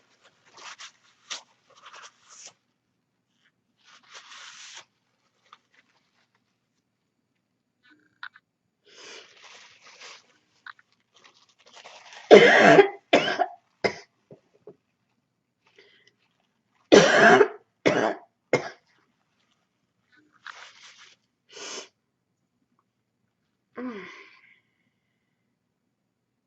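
A person's barking cough from a cold. There are two loud fits, about twelve and seventeen seconds in, each a strong cough followed by two shorter ones. Fainter coughs and breaths come before and after them.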